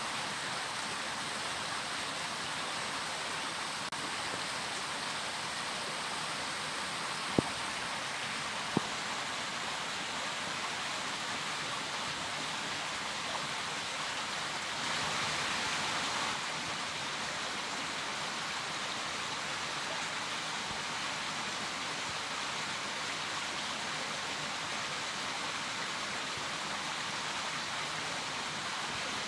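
Steady rushing of a small stream flowing, an even hiss of water. Two short sharp clicks cut through it about seven and nine seconds in.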